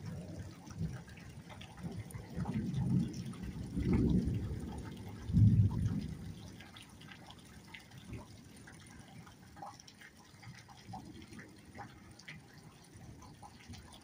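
Storm rain falling, with scattered drops ticking throughout. Gusts of wind hit the microphone as low rumbles, loudest between about two and six seconds in.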